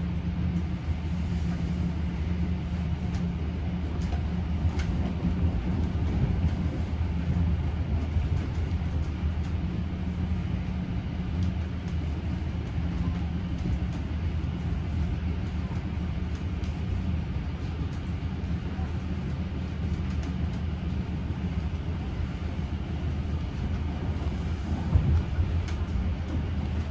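Vintage steam-hauled passenger carriage running at speed, heard from inside: a steady rumble of wheels on the rails with a low hum underneath. There is one louder knock near the end.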